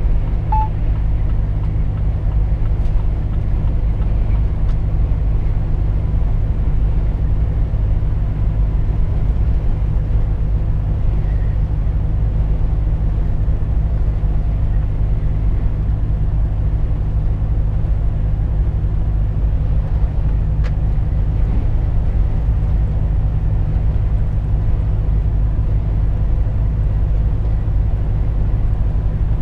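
Steady low drone of a Volvo FH 460 truck cruising at road speed, heard inside the cab: its 13-litre six-cylinder diesel and the road noise. The drone holds even throughout.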